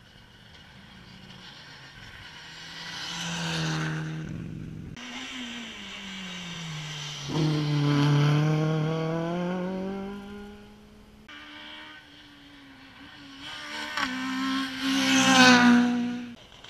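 Rally cars passing at speed on an asphalt stage, engines revving hard and changing gear, pitch climbing and dropping as each car goes by. Three separate passes, each breaking off abruptly, the loudest near the end.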